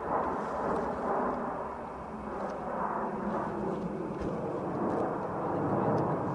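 Turbojet engines of the Snowbirds' formation of nine Canadair CT-114 Tutor jets flying overhead: a steady, dull rush of jet noise that rises and falls slightly.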